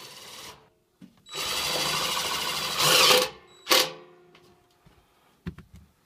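DeWalt 20V cordless drill driving a screw into the sheet-metal blower housing. It runs steadily for about two seconds, gets loudest just before it stops, then gives one brief second burst. A few light clicks follow.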